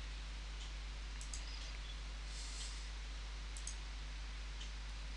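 A few computer mouse clicks, short and light, over a steady low electrical hum and microphone hiss.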